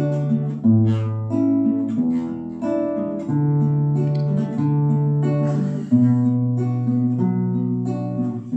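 Instrumental acoustic guitar music: slow chords with the bass and chord changing about once a second.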